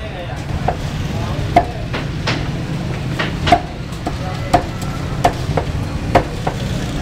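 Meat cleaver chopping chicken on a round wooden chopping block: sharp, irregular chops, roughly one or two a second, over a steady low background hum.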